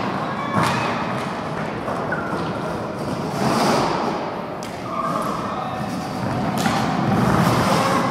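Roller hockey in play: roller skates rolling on the rink floor with repeated knocks and thuds of sticks and ball, some against the boards, echoing in a large hall.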